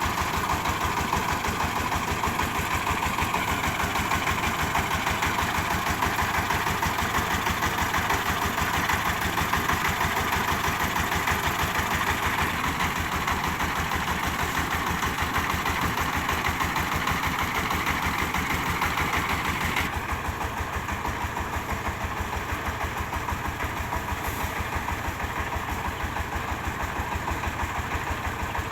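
Diesel engine of a mobile rice huller running steadily with an even, rapid chugging pulse. About twenty seconds in the sound drops a little and loses some of its hiss.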